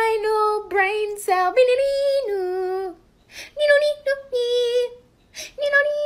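A high voice singing a tune in held notes that step up and down, with short breaks between phrases about three seconds in and again near five seconds, and little or no accompaniment beneath it.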